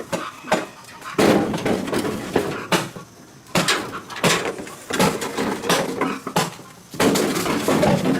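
Irregular clattering knocks, coming in several dense bursts.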